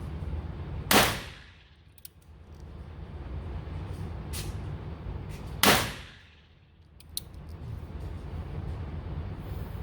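Two loud gunshots about five seconds apart, with a few fainter shots between them, over a steady low hum. The background drops away for a moment after each loud shot.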